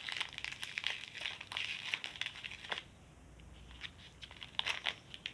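Slime with foam cubes mixed in, worked by hand: a dense run of small crackles and clicks that thins out about three seconds in, with a few more crackles near the end.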